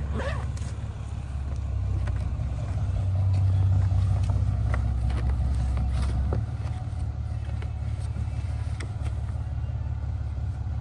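Motorcycle engine idling steadily, with a few light clicks over it; the idle drops slightly in level about six seconds in.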